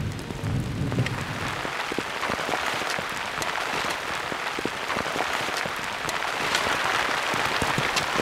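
Steady rain falling, a dense hiss full of individual drop hits, heavier from about a second in.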